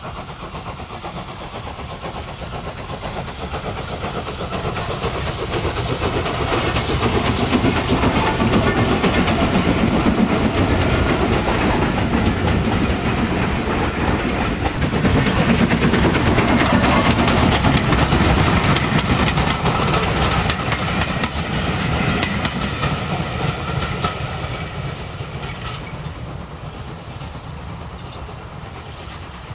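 Steam locomotive hauling a passenger train past, its exhaust and the coaches' wheels clattering on the track. It grows louder to a peak around the middle, then fades steadily as the train moves away.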